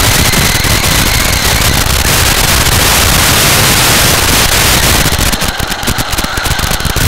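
Loud crackling static from a breaking-up analog FPV video link. About five seconds in, as the signal clears, the hiss thins into a choppier, sparser crackle.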